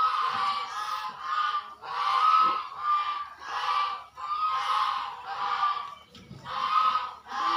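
An animal's loud honking calls, repeated in a steady series about one every two-thirds of a second, with a brief pause about six seconds in.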